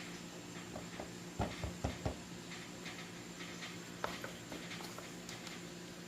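Light kitchen handling sounds: a quick run of four or five soft knocks about a second and a half in, then a few faint clicks, over a steady low hum.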